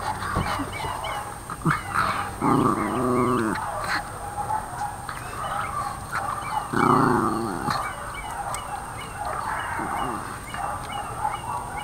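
Pomeranian puppy making two drawn-out vocal sounds, each about a second long, a few seconds apart, with chewing clicks from the treat it is guarding.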